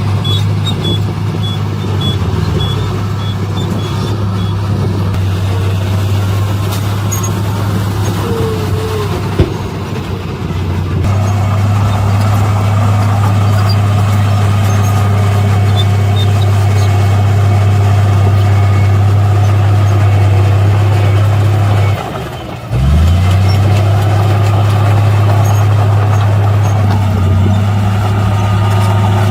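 Heavy diesel engine of a dump truck or bulldozer running steadily, with a reversing beeper sounding over it for the first few seconds. There is a single sharp knock about nine seconds in, and the engine sound dips briefly near the end before coming back.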